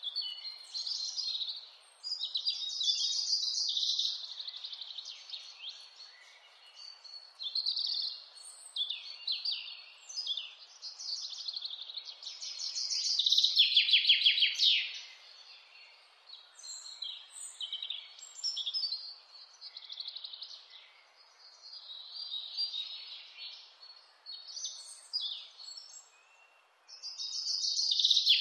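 Wild mountain songbirds singing: many short, varied phrases and fast trills that drop in pitch, the loudest trills about halfway through and again near the end. A faint steady hiss lies underneath.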